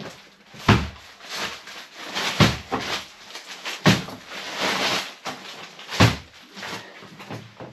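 Heavy paper sacks of sugar thumping down onto a stack, four dull thuds a second or two apart, with the paper rustling as the sacks are shifted into place.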